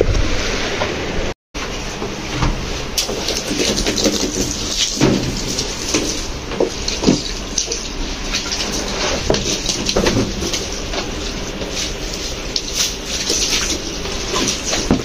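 Water from a garden hose spraying and splashing onto a wet rug on a tiled floor, with the soaked rug being lifted and turned, broken by a brief gap about a second and a half in.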